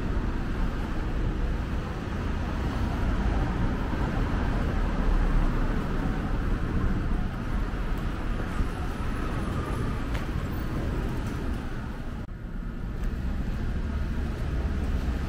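Steady low rumble of city traffic noise with no single clear event, briefly dropping away about twelve seconds in.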